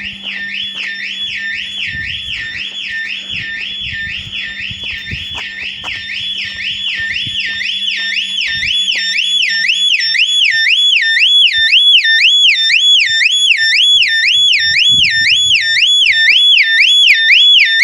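Volvo S60 car alarm siren sounding after its repair: a continuous warbling tone sweeping up and down about twice a second, growing louder over the first dozen seconds and then holding steady.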